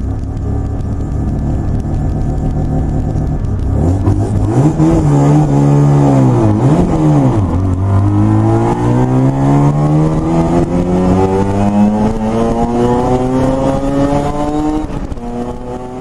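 Highly modified Mazda 10A peripheral-port rotary engine in an RX-3, heard from inside the cabin: running at low revs, blipped up and down a few times about four to seven seconds in, then revving up steadily under acceleration.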